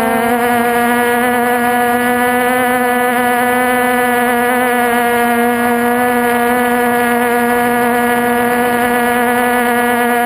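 Multirotor's electric motors and propellers running steadily in flight, picked up by the camera on board: a loud, continuous hum with a slight wavering in pitch.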